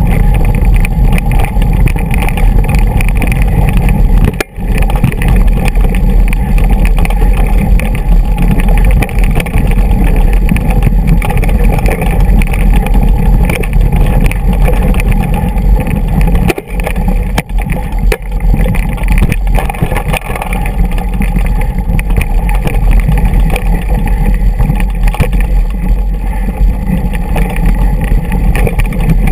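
Steady loud rumble of wind buffeting and rattling on a mountain-bike-mounted action camera as the bike rolls down a rough, rocky dirt track. The noise dips briefly about four seconds in and again just past the middle.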